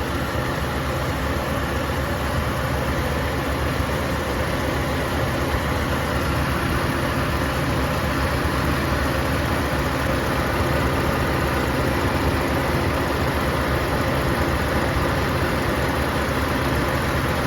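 2007 Dodge Nitro's 3.7-litre V6 idling steadily with the air conditioning running full blast, while a can of refrigerant is being charged into the A/C system.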